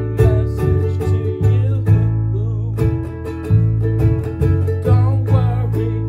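Concert ukulele strummed in a steady rhythm over sustained low notes from a foot-played bass, with a man singing in places.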